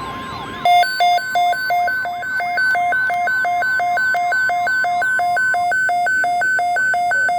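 Electronic alarm switching rapidly between a low and a high tone, about three low-high cycles a second, starting just under a second in. For the first few seconds a repeating siren-like sweep and a steady high tone sound underneath it, then fade out.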